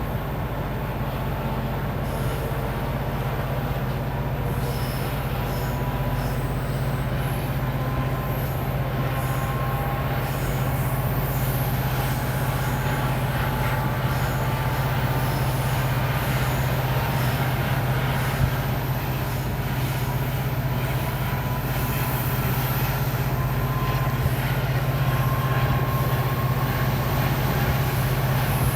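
The two-stroke EMD diesel engine of a WDP-4D locomotive humming as the train accelerates: a steady low drone that slowly grows louder, over the rumble of the train running on the rails. Thin higher tones come and go above it.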